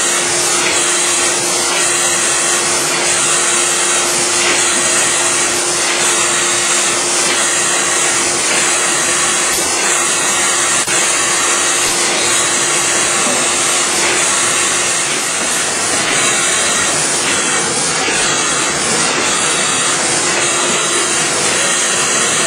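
Kase Equipment nine-colour dry offset cup and pail printer running: a loud, steady machine noise with a strong airy hiss and a constant low hum.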